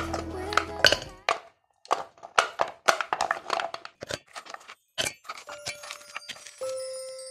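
Pieces of white wax candle dropped one after another into a stainless steel pot, a quick irregular run of knocks and clinks against the metal.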